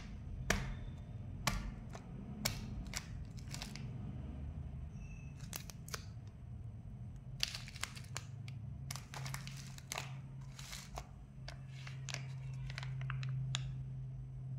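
Plastic snack wrappers crinkling and crackling as they are handled, in a string of sharp, irregular crackles, over a low steady hum that grows stronger in the second half.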